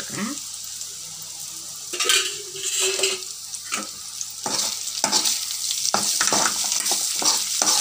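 Chopped onions and dried red chillies sizzling in hot oil in an aluminium kadai, the sizzle swelling as more oil is added. A metal utensil scrapes and taps against the pan, more often in the second half.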